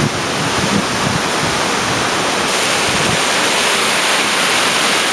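Waterfall heard close up: a loud, steady rush of falling water and spray.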